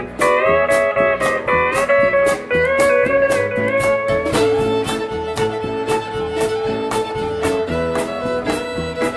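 Western swing band playing an instrumental break: a steel guitar leads with sliding, bending notes over guitar, bass and an even drum beat.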